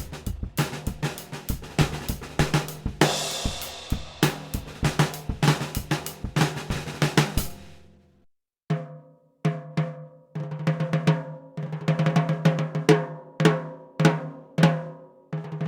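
NOAH DC 14x6-inch snare drum played in a drum kit: a groove with bass drum, hi-hat and cymbals, which stops about eight seconds in. After a short pause the snare is played alone, a few single strokes and then quick runs of strokes, ringing between hits.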